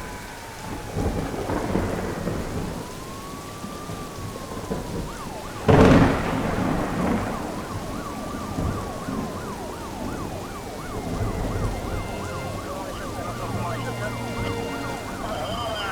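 Film sound effects: steady rain with a police siren wailing slowly up and down, and one loud thunderclap about six seconds in.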